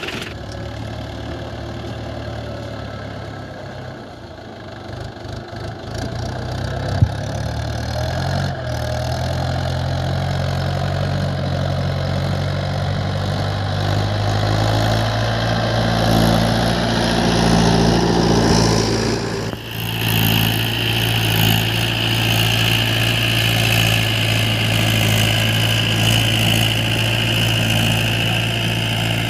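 Mahindra tractor's diesel engine running steadily as it pulls a seed drill, growing louder as it draws near. Past the middle a steady high hiss joins the engine sound.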